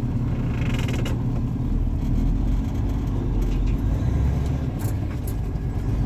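A semi-truck's diesel engine running steadily, a low rumble heard from inside the cab, with a few light ticks and rattles.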